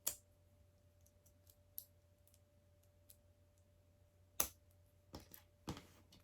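Small plastic LEGO pieces being handled and pressed together, giving a few scattered faint clicks, the loudest about four seconds in and a quick cluster near the end.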